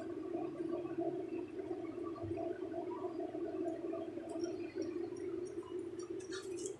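Steady low droning hum with a bubbling texture, like machinery running in the background. A few light metallic clicks sound near the end as fingers work the small metal clip on a torque converter shaft.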